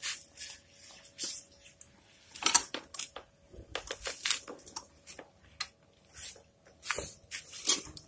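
Scattered metallic clinks and taps of hand tools and parts being handled on a Honda Supra X 125 engine opened up for a cam chain check, over a faint steady tone.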